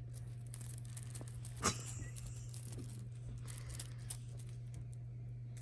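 British shorthair kittens scuffling and pouncing on a fabric blanket: soft rustles and scratchy pattering, with one sharp tap a little under two seconds in, over a steady low hum.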